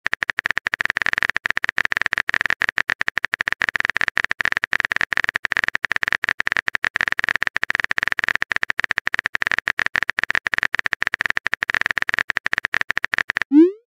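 Rapid keyboard-tap clicks from a texting app's typing sound effect, many a second without a break, as a message is typed out. Near the end a short rising tone plays as the message is sent.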